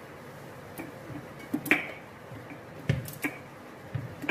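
About half a dozen light, sharp clinks and clicks of steel kitchen utensils being handled, a metal spoon in a steel oil container, the loudest about halfway through.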